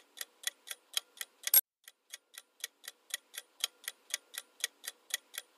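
Fast, even, clock-like ticking, about four ticks a second, with one much louder click about a second and a half in; the next few ticks are fainter before the ticking picks up again.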